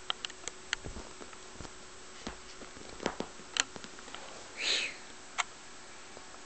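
Kitten playing on a fabric sofa: scattered light taps and scratches of paws and claws on upholstery, with one short breathy rustle or sniff about two thirds of the way through.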